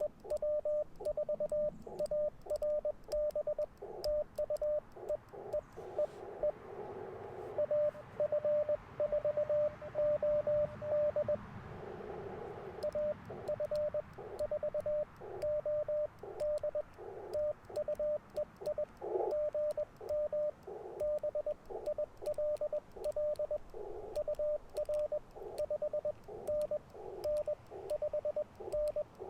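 Morse code (CW) from an Icom IC-705 transceiver: a single steady tone keyed on and off in quick dots and dashes, over a hiss of band noise.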